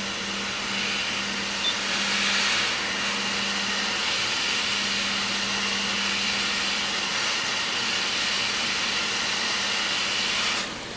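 Hot air rework station handpiece blowing a steady hiss of hot air with a faint hum under it, heating the solder joints of an HDMI port to clear any solder whiskers; it cuts off just before the end.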